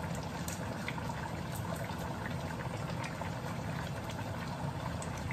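A wok of chicken afritada stew simmering on the stove: a steady bubbling hiss with scattered faint pops, over a low steady hum.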